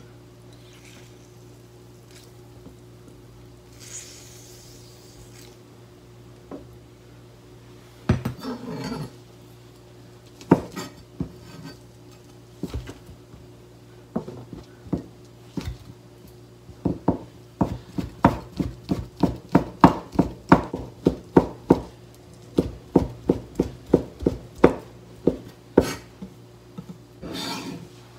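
Kitchen knife slicing soaked shiitake mushrooms into thin strips on a plastic cutting board: a few scattered taps at first, then a steady run of about three knife strokes a second through the second half. A brief scrape near the end as the board is swept clear.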